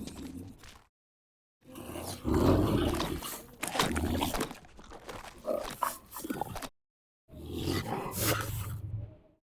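Pyroraptor creature sound effects: a series of separate growls and snarls built from big-cat growls such as a cougar's, played one after another with short silent breaks, about a second in and near two-thirds through.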